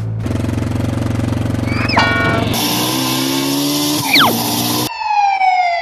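Cartoon-style sound effects: a steady motor engine sound, broken by quick whistle glides about two and four seconds in, then a long falling whistle near the end.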